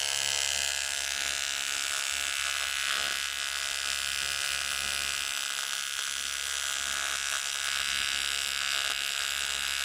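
AC TIG (argon-arc) welding arc on aluminium, a steady buzz with many even overtones, melting the broken steering-knuckle metal into a molten pool.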